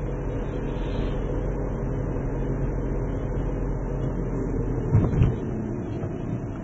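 Cabin sound of a Škoda Octavia driving at town speed, picked up by a dashcam on the windscreen: a steady low engine hum with tyre and road noise. Two louder thumps come about five seconds in.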